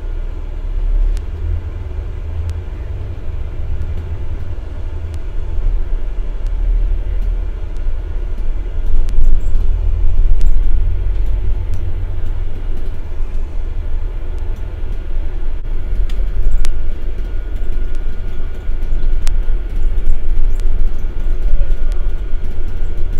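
Low, steady rumble of a double-decker bus in motion, heard from its upper deck, swelling and easing as it drives, with occasional light clicks and rattles.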